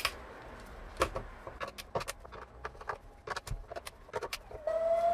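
Screwdriver clicking and knocking on screws and hard plastic as screws are backed out of a speaker cabinet and set down, with light rattles between. Near the end a steady whistle-like tone starts and slowly rises in pitch.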